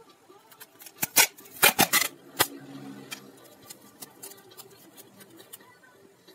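Clear packing tape pulled from a handheld tape dispenser and torn off on its cutter: a quick run of sharp rips and clicks about one to two and a half seconds in. Faint ticks and rustles of the tape being handled follow.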